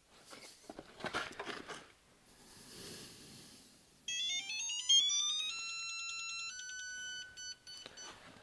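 Electronic tone from a CDI 2503-F-DTT torque tester as a beam torque wrench is pulled on it. The tone rises in quick steps from about four seconds in, then holds at two steady, slightly higher pitches and stops shortly before the end. Faint clicks of the wrench being gripped come first.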